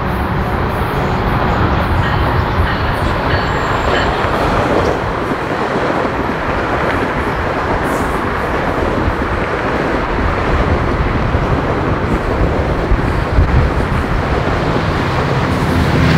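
GO Transit bilevel commuter train passing close by at speed: a steady rush of steel wheels on rail with some clickety-clack. Near the end the diesel engine of the locomotive at the rear of the train grows louder as it comes level.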